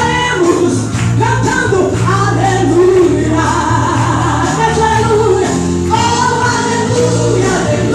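Gospel song: singing over a band accompaniment with a steady bass line.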